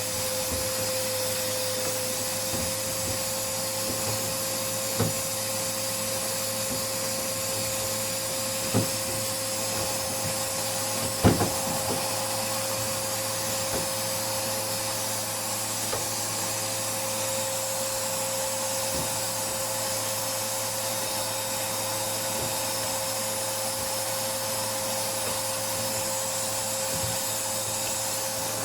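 Vacuum cleaner running steadily with a steady whine, its hose nozzle sucking lint out of a tumble dryer's filter housing. A few short sharp knocks sound over it, the loudest about eleven seconds in.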